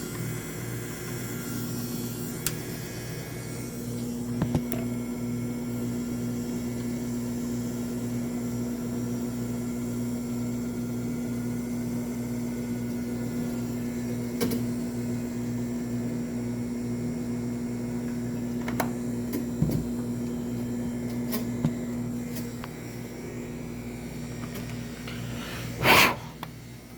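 Small electric motor of a mini washing machine running with a steady hum. It comes on a few seconds in and stops a few seconds before the end, with a few light clicks along the way and one brief loud knock near the end.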